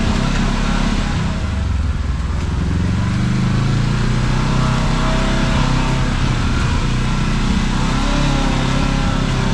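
Kawasaki KRX side-by-side's parallel-twin engine running steadily while driving, its note drifting slightly up and down with the throttle, over a constant haze of driving noise.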